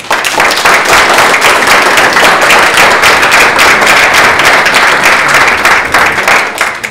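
Audience applauding: many hands clapping together, starting suddenly and dying away near the end.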